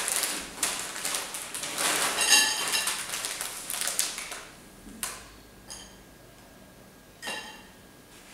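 Crinkling of a plastic crisp packet being shaken, with crunchy orange snacks tipping out onto a plate, a dense crackle of small clicks. It dies away after about four and a half seconds, followed by a few brief, quieter clicks.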